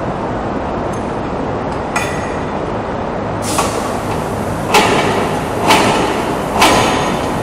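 Steady workshop machinery noise in a wire-rope shop. From about halfway in, four sharp bursts of noise come roughly a second apart, each dying away quickly.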